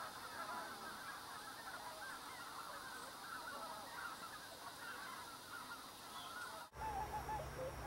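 A flock of wild geese calling together, many short honks overlapping in a continuous chorus. About two-thirds of the way through the sound cuts abruptly to a few louder, separate honks over a steady low rumble.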